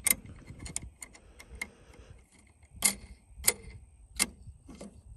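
Small metal wing nut being spun by hand onto the threaded stud of a tractor air cleaner's end cap: a run of light metallic clicks and ticks, with three louder clicks in the second half, each about two-thirds of a second apart.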